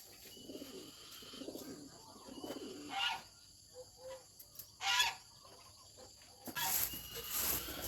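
Farm poultry calling: low murmuring calls at first, a couple of short sharper calls, then louder calls near the end.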